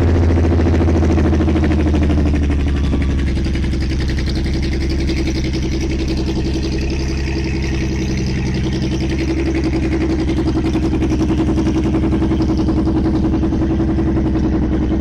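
Honda Valkyrie Rune's 1.8-litre flat-six engine idling steadily through its chrome exhausts, the level dipping slightly about two seconds in.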